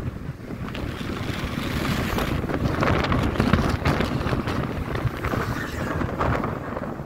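Wind buffeting the microphone of a camera carried on a moving vehicle, a dense, gusty rumble with road and engine noise beneath it.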